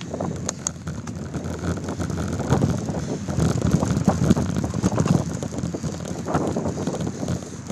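Trek X-Caliber hardtail mountain bike rolling over dirt singletrack, picked up by a phone in a waterproof case on the handlebar mount: a constant rumble of tyres and jolts full of small clicks and rattles, with wind on the microphone. It is rougher and louder for a few seconds in the middle.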